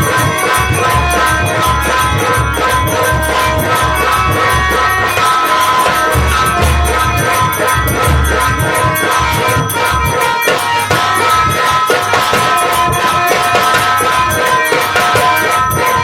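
Nautanki folk-theatre instrumental music: a held reed melody over jingling percussion, with a low drum beating a fast rhythm that drops out about nine seconds in.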